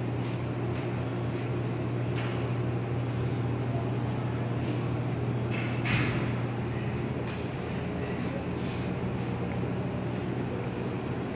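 Steady low mechanical hum of indoor machinery, with a few faint clicks and a soft knock about six seconds in.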